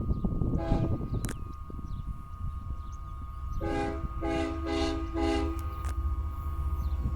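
Freight locomotive air horn: one short blast about half a second in, then four short blasts in quick succession around the middle, over the low steady rumble of the passing freight train.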